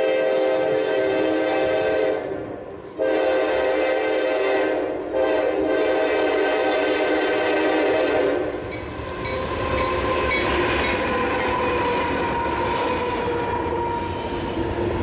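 Freight locomotive air horn blowing several chord blasts: a long one, a second long one after a short break, then a final blast held about three seconds. The train then rolls by with a steady rumble of wheels on rail and a faint high steady tone.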